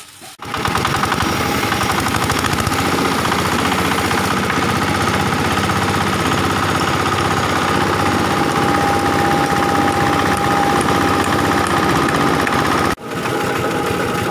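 Red single-cylinder diesel engine driving a belt-driven hammer-mill grass chopper at full speed, a steady loud clatter with a constant whine from the spinning mill, as peanut shells are fed in and ground. The sound breaks off for a moment near the end and resumes slightly quieter.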